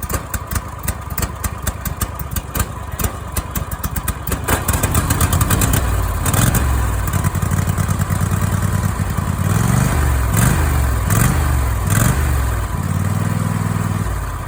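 Lawnmower engine fitted with a thumper cam kit, running with a choppy, pulsing idle, then revved up and down several times.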